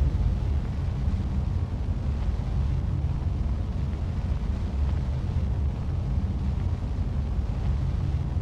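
Deep, steady low rumble with no clear tones, a sound-design drone in a film soundtrack.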